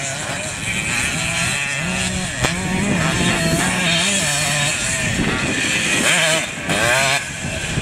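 Vintage off-road motorcycle engine revving up and down as the bike accelerates out of dirt corners, its pitch rising and falling repeatedly, most sharply near the end.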